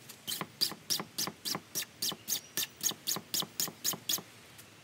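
Empty Bic lighter's spark wheel struck again and again against its flint, a rapid run of sharp clicks at about four a second that stops shortly before the end; with no fuel left, it throws only sparks.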